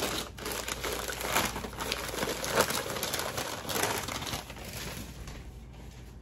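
Packaging crinkling and rustling as an item is unwrapped by hand, busiest for the first few seconds, then dying down.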